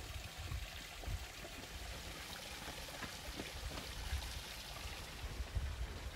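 Wooden rolling pin rolling out dough on a floured wooden board, soft low rumbling with a few light taps, over a steady rushing background like running water.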